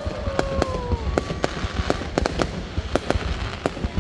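Fireworks display going off: sharp bangs in rapid irregular succession, several a second, over a continuous low rumble, with a smooth falling tone in the first second.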